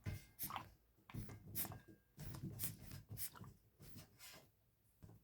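A soft vinyl and hard plastic toy figure being handled and turned in the hands: irregular soft rubs and small clicks.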